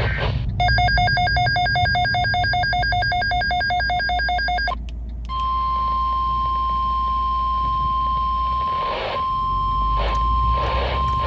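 Rapid, buzzy electronic beeping for about four seconds, then after a brief gap the steady 1050 Hz NOAA Weather Radio warning alarm tone. Near the end the tone is broken by short bursts of noise, all over a low electrical hum.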